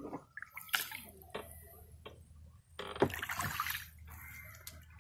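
Water sloshing and splashing close by: a few short light splashes, then a louder splash about three seconds in.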